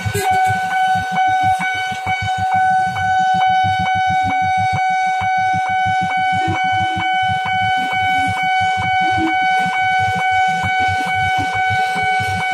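Railway level-crossing warning alarm sounding continuously: one steady electronic tone pulsing about three times a second. Motorcycle engines idle underneath it at the closed crossing.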